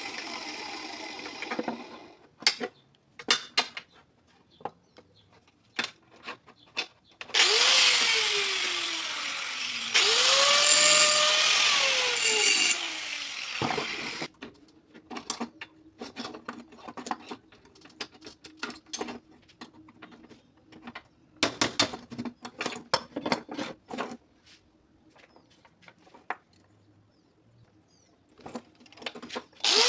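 Handheld power tool run in short bursts, spinning up and falling in pitch as it stops: it winds down about two seconds in and runs twice more near the middle. Between runs, scattered clicks and knocks of tools being handled.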